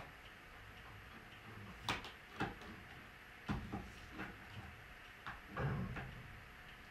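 A few faint, separate clicks and knocks over a low background hiss, with a short muffled thump near the end.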